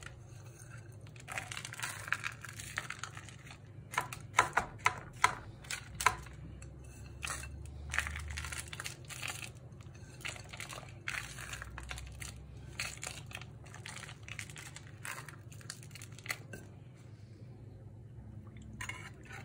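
Crushed hazelnuts scattered by hand from a glass bowl onto wet güllaç sheets in a metal tray: an uneven run of small crackling ticks, busiest around four to six seconds in. A steady low hum runs underneath.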